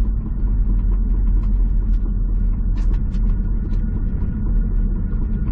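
Honda S2000 coasting in neutral, heard from inside the cabin: a steady low road and drivetrain rumble with the engine idling, plus scattered light clicks and rattles. The owner, testing a noise he hears when coasting, still feels something off balance in the crash-damaged car.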